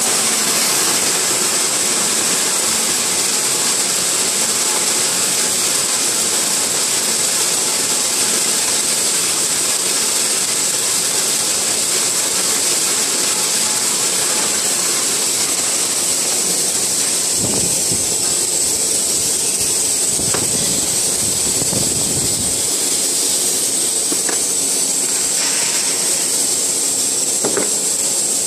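CCD agricultural colour sorting machine running: a steady, loud hiss with a strong high-pitched band, with a spell of low rumble in the middle.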